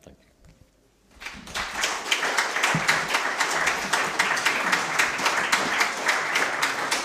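Audience applauding: clapping starts about a second in, builds quickly and then holds steady.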